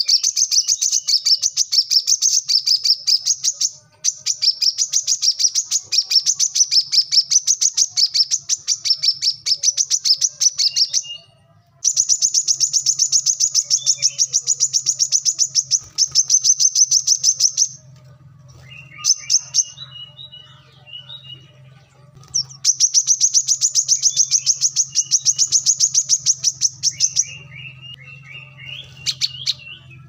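Male brown-throated sunbird singing: long runs of rapid, evenly repeated high chirps, broken by short pauses and by a few lower twittering phrases.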